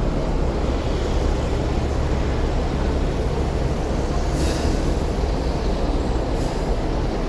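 Steady low rumble of vehicle and street noise, with two faint brief hisses about four and six seconds in.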